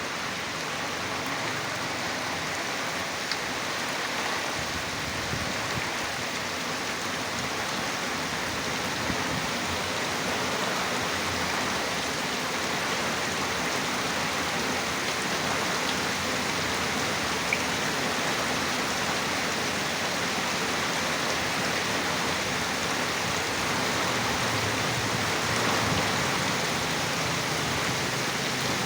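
Heavy rain falling steadily in a mangrove forest, a dense, even hiss of rain with no let-up.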